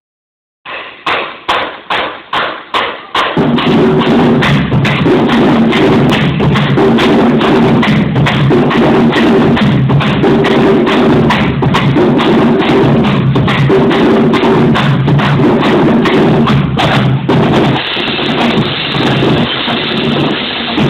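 School marching drumline of snare drums, bass drums and hand cymbals playing a cadence: a row of single unison strikes about two a second, then from about three seconds in fast continuous drumming over a repeating bass-drum pattern, with the cymbals coming up near the end.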